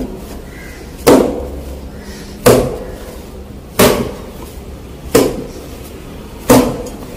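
Maida dough being kneaded by hand in a stainless steel bowl: five evenly spaced thuds, about one every second and a half, as the dough is pushed and knocked down against the bowl.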